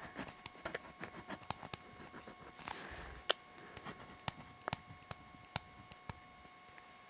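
Ballpoint pen writing in a paper notebook: faint scratching and small ticks of the pen on the page.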